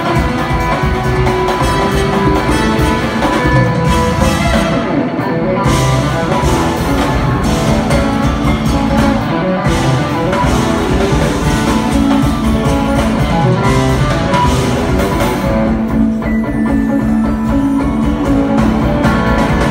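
Live jazz-fusion band playing loudly: electric guitars over a drum kit and keyboards, heard from the audience.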